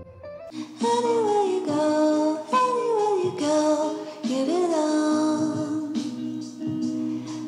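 Background music with a sung melody whose notes slide downward at the ends of phrases.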